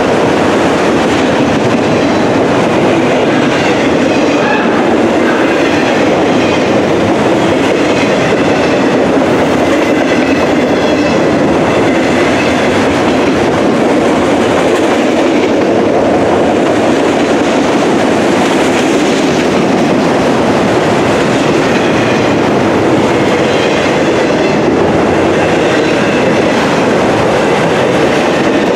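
Loaded autorack freight cars rolling past close by: a loud, steady noise of steel wheels on the rails, with faint brief high-pitched squeals now and then.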